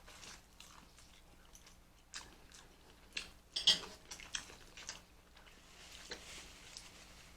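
Close-miked eating sounds from a seafood boil: quiet chewing and biting, with scattered sharp clicks and crackles, the loudest a little past the middle.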